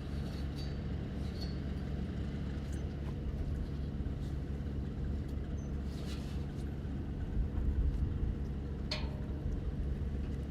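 A heavy engine running steadily at idle, a constant low drone, with a few faint light metallic clinks about six and nine seconds in.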